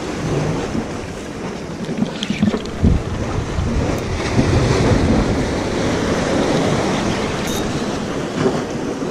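Steady wind noise buffeting the microphone, with the sea washing below and a few faint clicks.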